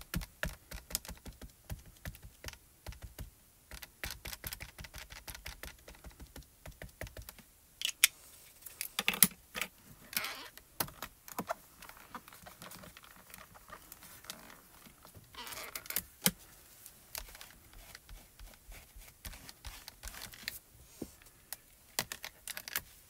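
A mini ink cube dabbed quickly on clear photopolymer stamps, a fast run of light plastic clicks. Then scattered clacks and knocks as the stamping platform's clear lid is closed, pressed down and opened, the sharpest about eight to nine seconds in and again about sixteen seconds in.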